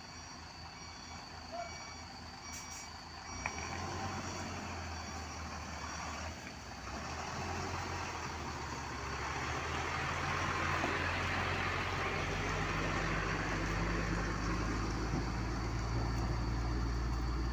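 Isuzu FVZ self-loader truck's diesel engine running, growing steadily louder about halfway in as the truck works up, with a reversing beeper sounding short repeated beeps during the first few seconds.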